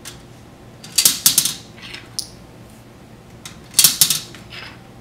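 Plastic Connect Four chips dropped into the grid, each clattering down its column in a quick run of clicks: one about a second in and another near four seconds.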